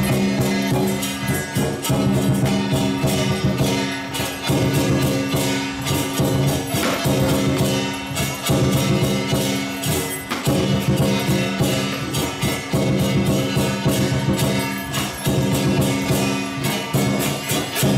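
Hakka lion dance music: rapid percussion strikes over sustained pitched tones.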